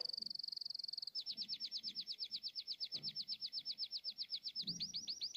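Domestic canary singing: a fast high trill, then a long run of identical down-sweeping notes at about ten a second, changing near the end to a higher series of sweeps.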